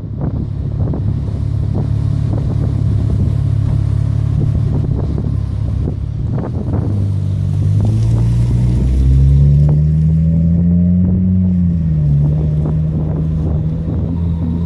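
Exhaust of a 2015 Dodge Challenger's 3.6-litre V6 through Flowmaster Super 10 mufflers. It runs at a low, steady note, climbs in pitch through the middle as the revs build, then dips and settles to a steady, higher note near the end.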